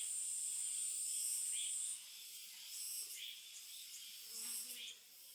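A steady high-pitched insect trill cuts off abruptly about two seconds in, while short high chirps of birds recur every second or so.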